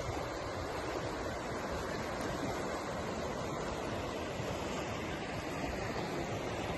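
Steady rushing of water, with a low uneven rumble of wind on the microphone.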